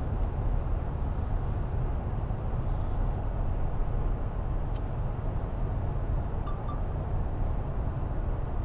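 Steady road and engine noise inside a pickup's cab at about 65 mph. About six and a half seconds in, the Haloview BT11 rear-view mirror monitor gives its blind spot detection alert: two quick high beeps, set off by a car coming up behind.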